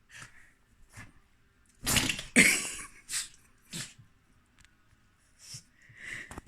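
Small dog sneezing: two sharp sneezes in quick succession about two seconds in, among shorter, softer snorting breaths. A sharp click sounds near the end.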